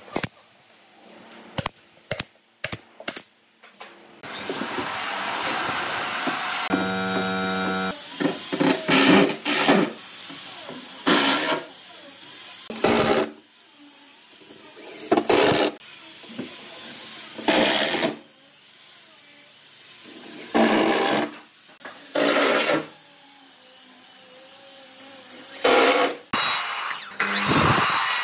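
A pneumatic brad nailer fires a quick string of sharp shots into pine boards in the first few seconds. After a few seconds of steady machine noise, a cordless drill drives long wood screws into pine in a long series of short whirring bursts.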